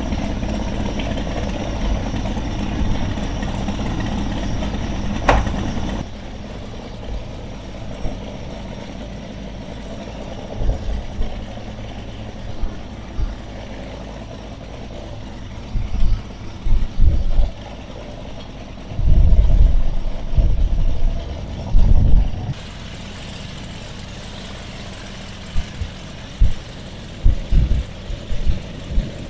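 An engine running steadily, louder for the first six seconds, with repeated sudden low thumps of wind buffeting the microphone in the second half.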